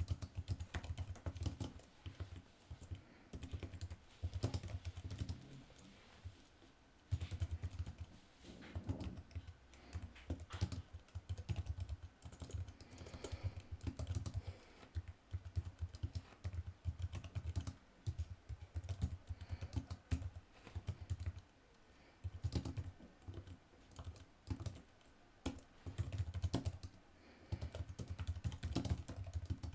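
Typing on an Apple Magic Keyboard, a low-profile membrane keyboard: quick runs of soft key clicks with short pauses between phrases.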